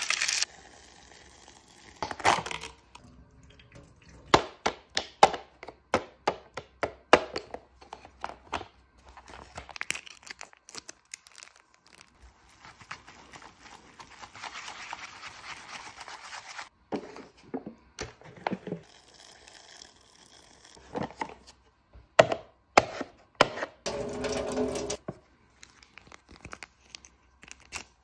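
Cup ramen being handled and mixed: seasoning and sauce packets crinkling and tearing open, and metal chopsticks clicking and scraping against the paper cup while stirring the noodles. Sharp clicks come in runs with stretches of rustling between.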